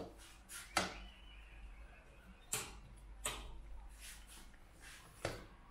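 Light kitchen handling sounds while making pancakes: a few separate knocks and clicks of cookware and utensils, several seconds apart.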